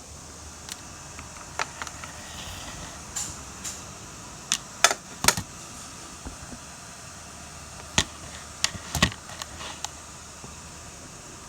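Irregular sharp clicks and knocks, the loudest a close pair near the middle and a cluster about three-quarters through, over a steady low hum.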